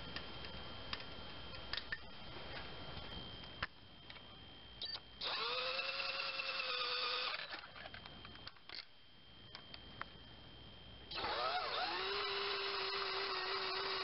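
A power drill-driver running in two bursts of about two and three seconds, with a steady motor whine, spinning in the bolts of a 2.2L Ecotec engine's upper timing chain guide. A few light metal clicks come before the first burst.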